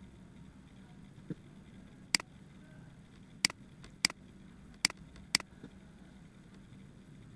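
Computer mouse clicking: five sharp, irregularly spaced clicks, with two fainter ones before and after, over a faint low hum.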